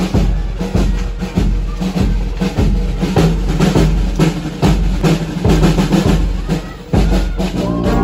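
Brass band drums beating a steady march rhythm, about three strokes every two seconds, over low held notes. Near the end the brass section enters with a sustained chord.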